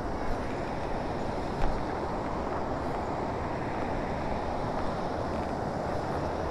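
Shallow river rushing over rocks and stones: a steady rush of running water, with a low wind rumble on the microphone.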